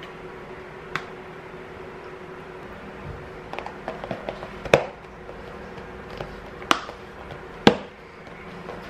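Plastic Ziploc food-storage container lid being pressed shut by hand: small clicks and rustles of plastic, then three loud sharp snaps as the lid's edges lock down, over a steady low hum.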